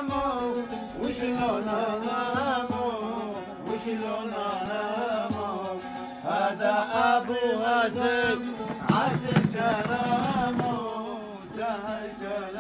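A man singing an Arabic folk song in a wavering, ornamented voice, accompanying himself on a bağlama (long-necked saz lute). The voice drops back for a couple of seconds around four seconds in while the saz plays on.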